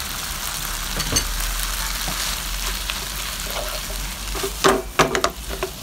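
Garlic scapes and scrambled egg sizzling in a hot wok while a wooden spatula stirs and tosses them, with a few louder strokes of the spatula against the wok near the end.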